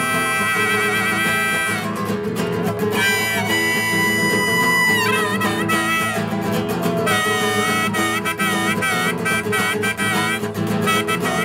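Concert flute and classical guitar playing a duet. The flute carries the melody with vibrato, holding one long note a few seconds in and then moving to quicker notes, over plucked guitar accompaniment.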